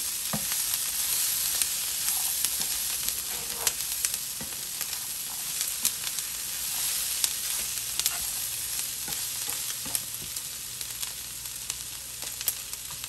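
Bottle-gourd skin strips and vegetables sizzling steadily in a hot frying pan while being stirred and tossed with a spatula, with scattered short clicks and scrapes of the spatula against the pan.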